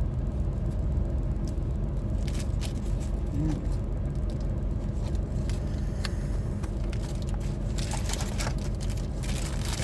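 A steady low engine-like rumble throughout, with scattered light clicks and, from about eight seconds in, a crackly rustle of food and wrapper being handled.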